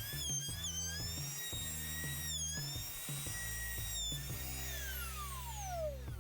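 Router spinning a bearing-guided cove bit at high speed, a high whine that dips slightly as it cuts into the beech. About four seconds in it is switched off and the whine falls steadily in pitch as the bit spins down. Background music with a steady low beat runs underneath.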